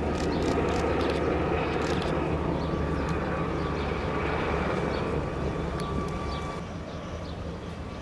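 Sikorsky VH-60N WhiteHawk helicopter's rotor and twin turboshaft engines running steadily, with a thin high turbine whine over a low hum. The sound drops a little near the end.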